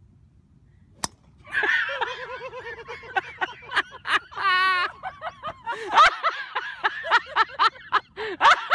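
A golf driver strikes a trick ball with one sharp crack about a second in, and the ball bursts into a white cloud. Hearty laughter follows and carries on to the end.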